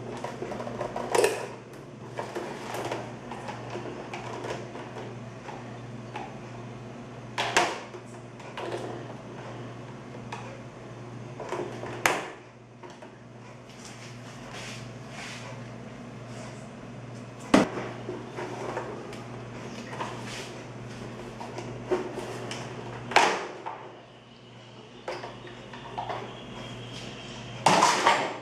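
Plastic parts of a Britânia Mega Turbo 40 Six fan being handled during disassembly: scattered clicks and knocks, with about six louder clunks spaced a few seconds apart, over a steady low hum.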